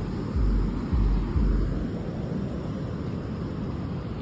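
Wind buffeting an outdoor microphone: irregular low rumbling gusts in the first second and a half, then a steadier, softer rushing noise.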